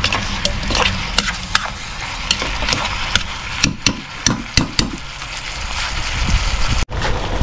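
Cooking sounds: a utensil clicking and knocking irregularly against cookware over a steady hiss, with an abrupt break near the end.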